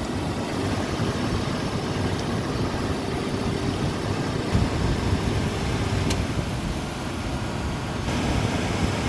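Ford Ranger's engine idling steadily with the air conditioning compressor running. One sharp click about six seconds in.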